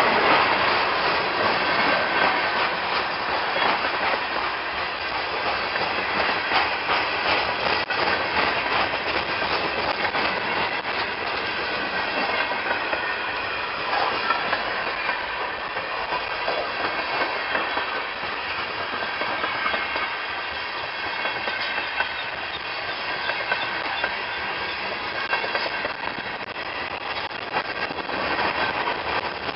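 A freight train's cars rolling past, with a steady clatter of wheels on the rail joints and a faint high ringing from the wheels.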